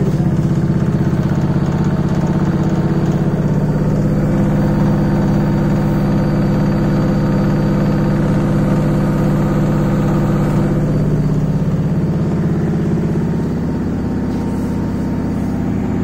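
Bosch front-load washing machine spinning on its 1000 rpm setting: a steady motor-and-drum hum with a fast, even pulse, its deepest rumble dropping away about twelve seconds in.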